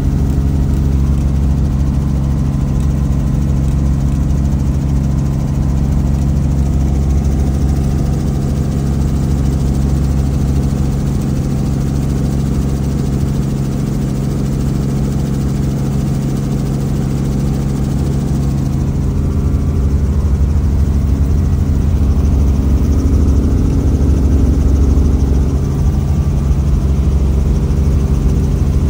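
Robinson R44 Raven helicopter heard from inside the cabin in flight: the steady drone of its piston engine and main rotor, with a deep rotor throb underneath. The throb eases off for several seconds midway and comes back stronger about two-thirds of the way through.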